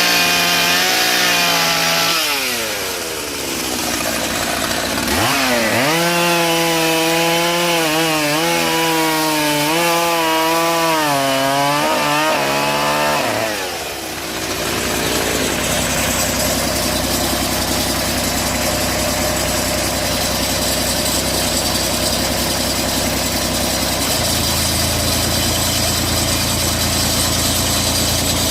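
Power saw cutting through a log. Its pitch dips about two seconds in, climbs back, and wavers under load as it bites into the wood. About halfway through it drops to a steadier, noisier running sound, which turns deeper near the end.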